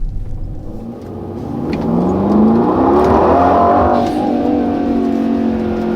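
Brabus 900 GLE 63 Coupe's 4.5-litre twin-turbo V8 accelerating hard in Comfort mode, with the turbos heard breathing. The engine note climbs from about a second in, drops with an upshift near four seconds, then pulls on steadily.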